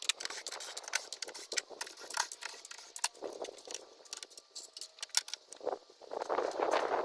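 Small metal tools and hardware clinking and clattering as they are handled, many sharp irregular clicks, with a longer scraping noise about three seconds in and again near the end.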